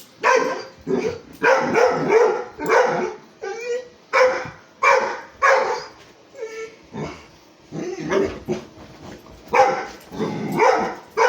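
Dog barking repeatedly in quick, sharp barks, easing off for a couple of seconds in the middle before picking up again: alarm barking at a moving vacuum cleaner the dog treats as an enemy.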